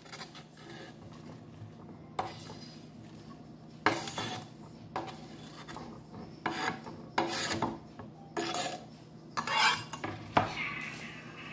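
Cleaver knocking and scraping on a wooden cutting board as chopped cabbage is cut and swept off the board into a bowl: irregular knocks and scrapes, roughly one a second, over a faint steady low hum.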